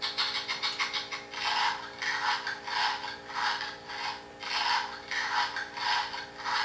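LEGO Mindstorms EV3 robot dog making a run of short rasping bursts, roughly one every half second or so, evenly spaced. It is the sequence the dog runs when it has been overfed, leading up to its programmed 'peeing'.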